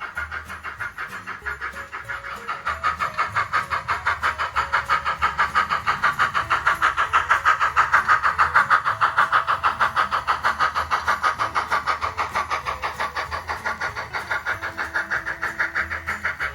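Model train running on the layout's track, a rapid even clatter of about seven clicks a second that grows louder until about halfway and then fades as the train passes.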